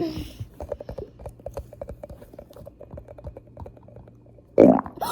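Squishy fart putty crackling with a quick, irregular run of small wet pops as air is pressed out of it. Near the end comes a sudden loud sound that falls in pitch.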